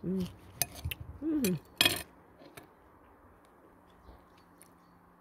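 A kitchen knife slicing through a ripe tomato on a plate, with a few sharp clicks and taps of the blade and the loudest knock about two seconds in. Two short hummed vocal sounds come in the first second and a half, then only faint handling ticks as the tomato is pulled apart by hand.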